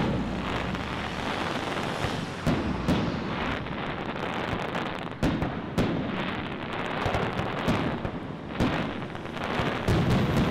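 Aerial fireworks shells bursting: irregular sharp bangs every second or so, with a steady rumble between them.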